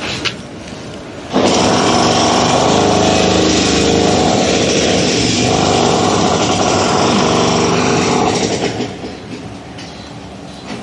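A small motor starts suddenly about a second in and runs loud and steady at one speed for about seven seconds, then fades away.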